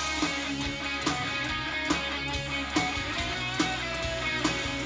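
Live rock band playing an instrumental stretch: electric guitars over bass and a steady drum beat.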